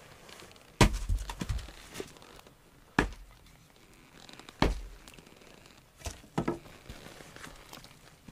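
A series of heavy wooden thuds and sharper knocks at irregular intervals, about six in all, the loudest about a second in, as pieces of firewood are handled and set down.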